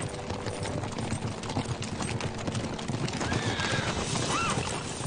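Several horses galloping over sandy ground, a dense irregular clatter of hoofbeats, with two short rising-and-falling high calls about three and four seconds in.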